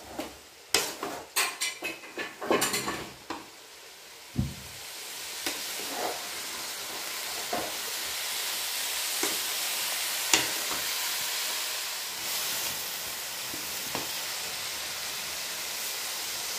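Shredded cabbage being stirred and tossed with a wooden spatula in an aluminium kadai: a run of quick scraping knocks of the spatula against the pan for the first few seconds, then a steady sizzle as the cabbage fries, with the odd tap.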